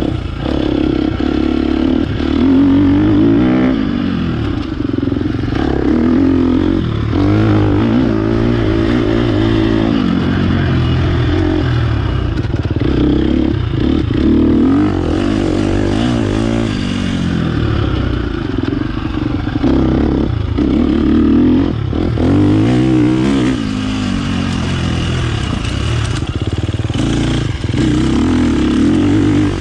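Dirt bike engine running hard and revving up and down over and over as it is ridden along a trail, heard close from the bike itself.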